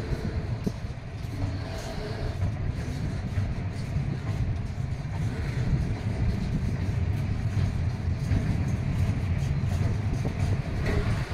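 Double-deck car-carrier freight wagons rolling past at close range: a steady low rumble of steel wheels on the rails.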